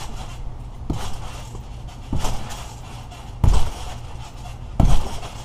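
A person bouncing on a trampoline: four thudding landings on the mat about a second and a half apart, each louder than the last as the jumps get higher.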